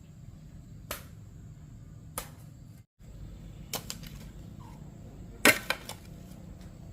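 A few sharp knocks or taps of hard objects, spaced a second or more apart, the loudest a quick run of clicks about five and a half seconds in, over a low steady hum.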